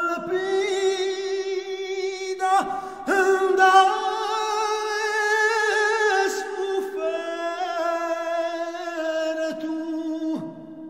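Vocal music: long held sung notes with vibrato, broken by a few sudden cuts, fading out near the end.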